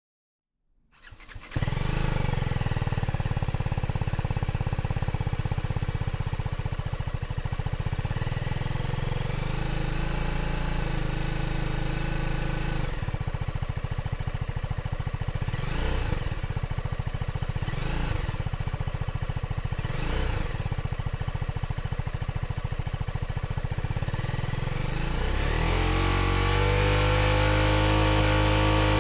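A BMW G310R's single-cylinder engine through its stock exhaust muffler, idling with the bike in neutral. It is blipped three times, each a quick rise and fall in revs about two seconds apart. Near the end it is revved up and held at a steady higher speed.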